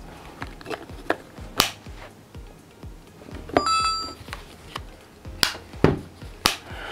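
Several sharp clicks of AirPods Pro charging cases being handled, with a short ringing tone about three and a half seconds in, over faint background music.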